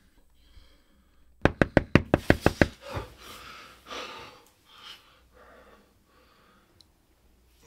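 Rapid knocking on a door with the knuckles, about nine quick knocks in just over a second, followed by quieter noisy sounds.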